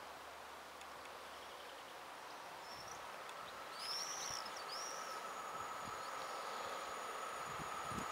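EP07 electric locomotive hauling a passenger train as it approaches, growing louder, with a steady high whine setting in about three seconds in and a couple of short high chirps around four seconds.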